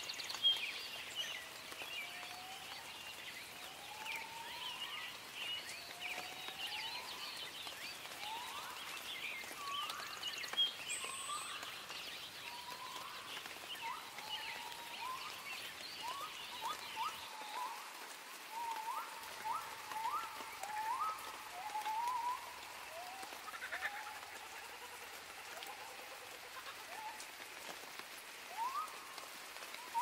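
Wildlife ambience: a chorus of short upward-sliding animal calls, a few a second at times, over a steady hiss, with thinner, higher chirping that fades out about halfway through.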